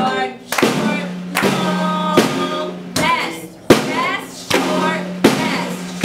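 Snare drum struck with drumsticks in a slow, even beat: seven strokes about 0.8 s apart, each ringing on until the next. A voice is heard between the strokes.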